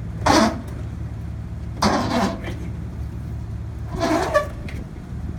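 A motor vehicle's engine idling steadily, broken by three short louder sounds about two seconds apart.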